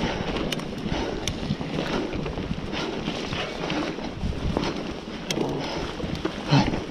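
Mountain bike rolling along a forest trail: steady tyre noise and wind rushing on the microphone, broken by scattered sharp clicks and rattles from the bike. There is a brief louder thump near the end.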